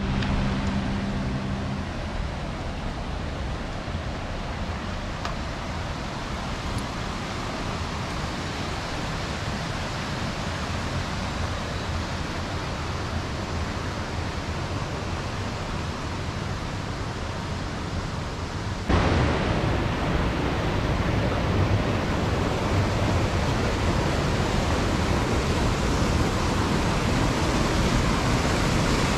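Steady rushing of a mountain stream tumbling over small waterfalls. About two-thirds of the way through it jumps suddenly louder and fuller.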